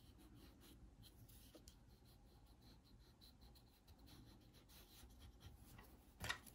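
Faint pencil scratching on watercolour paper as short outline strokes are drawn, with a louder stroke near the end.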